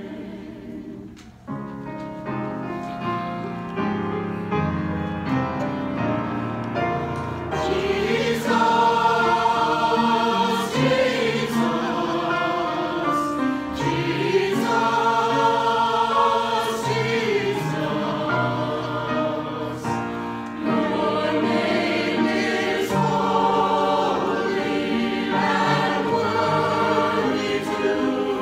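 Mixed church choir singing a sacred anthem in harmony, starting softly and swelling fuller and louder about seven seconds in.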